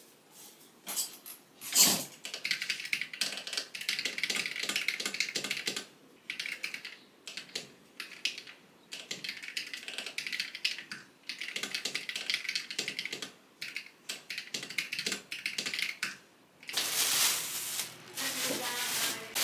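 Typing on a Gamakay LK67 mechanical keyboard with Gateron yellow switches: runs of rapid key clacks broken by short pauses. Near the end, a plastic bag rustles as hands undo its knot.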